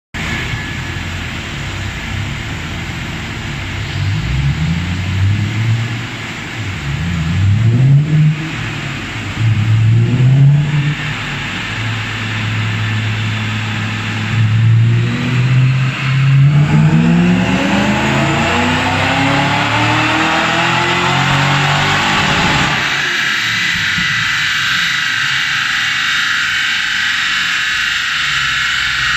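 Supercharged BMW E39 540i's 4.4-litre V8 run on a chassis dyno. A few throttle blips are followed by a long full-throttle pull that rises steadily in pitch for about six seconds and cuts off abruptly. After the lift-off the engine note falls away, leaving a steady high whine and rushing noise.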